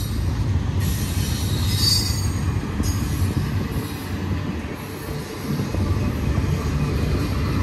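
Double-stack intermodal container train rolling past: steady low rumble of the well cars' wheels on the rails, with a brief faint high wheel squeal about two seconds in.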